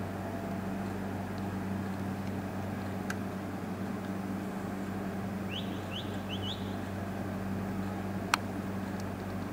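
Steady low hum and hiss of street ambience, with a quick run of four or five short rising bird chirps just past the middle. A couple of single sharp cracks, the loudest near the end.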